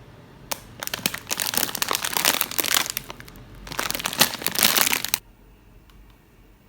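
Wrapper or packaging being crumpled and crinkled by hand in two spells of a few seconds each, the second stopping about five seconds in.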